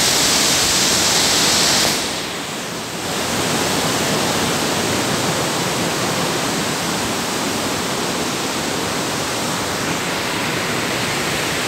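Water rushing over boulders in a shallow rocky stream, a steady hiss of small cascades. It is loudest and brightest for the first two seconds, dips briefly, then runs on evenly.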